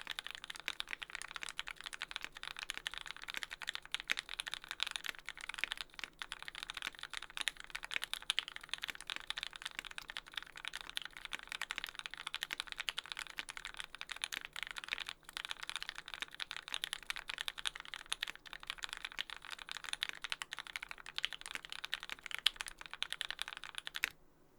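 Fast, continuous typing on a Percent Studio Canoe mechanical keyboard with lubed Tealios V2 linear switches in Cherry top housings, an aluminium plate and GMK keycaps, with no sound dampening. The keystrokes stop abruptly near the end.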